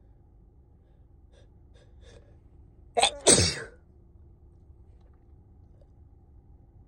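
A person with a cold sneezing once, loudly, about three seconds in, after a few faint catching breaths. The sneeze comes in two quick parts, the second longer and falling in pitch.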